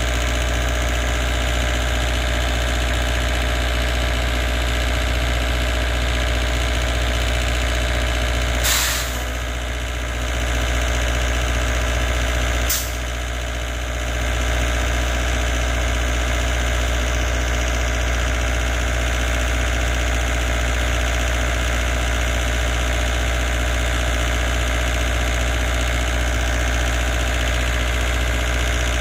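An engine idling steadily with a constant low hum. There are two sharp clicks, about nine and thirteen seconds in.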